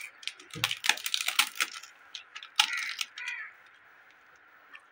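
Crisp papad crackling and snapping as fingers crush it into rice on a stainless steel plate, with small metallic clicks of fingers against the steel. The crackles come thick in the first second and a half, with one more cluster near the middle.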